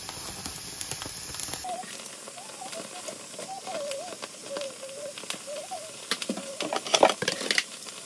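Pork belly skin being singed over an open gas burner to burn off leftover hair: a steady hiss from the flame and the searing skin, with metal tongs clicking against the wire rack, most busily about seven seconds in. A faint wavering tone sounds behind it.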